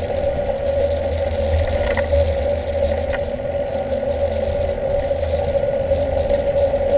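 Mountain bike rolling along a paved lane, picked up by a handlebar-mounted camera: steady tyre and riding noise with a constant hum, low wind rumble on the microphone, and a couple of small rattling clicks.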